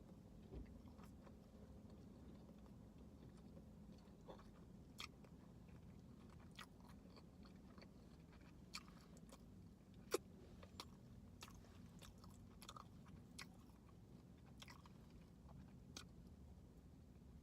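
Faint chewing of a sausage McMuffin: soft, irregular mouth clicks, one sharper click about ten seconds in, over a low steady hum.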